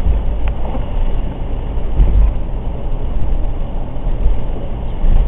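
Blizzard wind gusting hard against the microphone, a loud, uneven low rumble that swells and drops.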